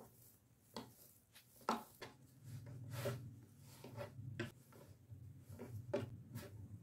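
Bread dough being kneaded by hand on a wooden table: soft, irregular thuds and slaps as the dough is pushed down and folded over, about one a second. A low steady hum runs under it from about two and a half seconds in.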